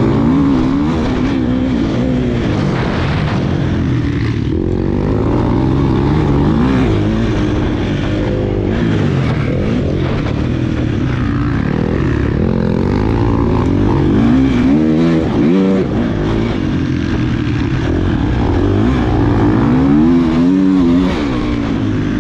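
KTM 250 SX-F motocross bike's single-cylinder four-stroke engine heard from on board, revving up and falling back over and over as the throttle is opened and shut and the gears are changed. The engine note drops off briefly about two-thirds of the way through before picking up again.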